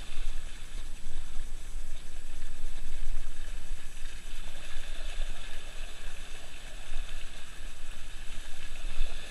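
Dog-drawn kart rolling along a muddy, wet trail: a steady rumbling, slushy noise of wheels through mud and water.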